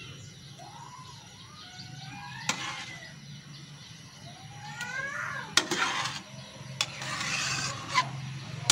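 Metal ladle scraping and clinking against a large aluminium pan while stirring a thick cream sauce, the loudest strokes about two-thirds of the way through and near the end. Earlier, a few short rising-and-falling animal calls sound over a low steady hum.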